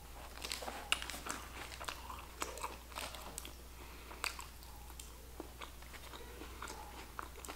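Quiet eating sounds of a sub sandwich: scattered small clicks and crackles from chewing and from the sandwich being handled on its paper wrapper, thickest in the first half.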